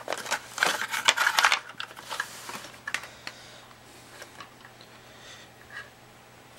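Clattering, scraping and clicking as an appliance tester's wooden case is handled and its metal front panel with wiring is lifted out. The busiest clatter is in the first second and a half, followed by a few scattered clicks.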